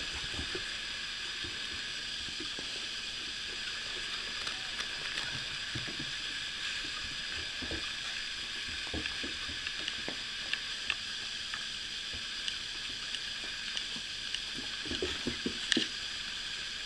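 Puppies scuffling with plush toys on carpet: scattered soft knocks and scrapes over a steady hiss, with a short burst of sharper sounds near the end.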